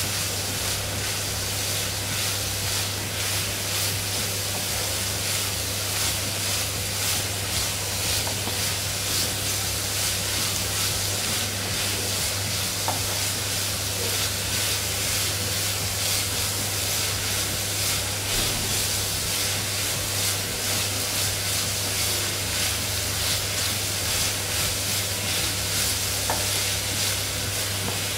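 Grated carrots sizzling steadily in hot ghee in a non-stick kadai while a wooden spatula stirs and scrapes them round the pan, with a low steady hum underneath. This is the light frying of the carrots before they go into the kheer.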